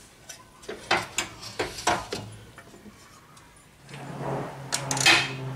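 Metal tools and suspension parts clinking and knocking while a castle nut and bolts are fitted to a new lower control arm. About four seconds in, a steady mechanical hum starts, joined by a few sharp clicks.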